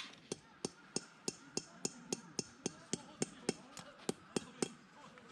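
Hammer blows in a fast, even rhythm, about three and a half a second: some seventeen sharp metallic strikes that stop shortly before the end.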